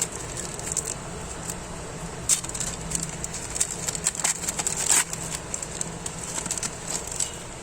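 A foil trading-card packet being handled and torn open, its wrapper crinkling in irregular crackles, with the loudest bursts about two seconds in and again around four to five seconds in.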